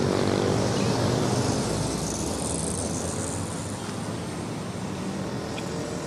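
Steady traffic noise of a busy city street picked up by a reporter's handheld microphone: engines and tyres of passing vehicles, easing slightly after the first couple of seconds.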